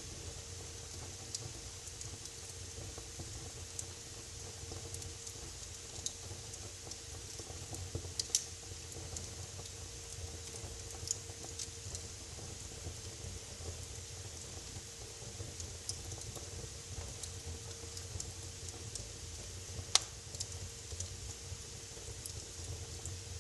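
Wood fire crackling in a fireplace: scattered small pops and snaps over a faint steady hum, with one louder pop near the end.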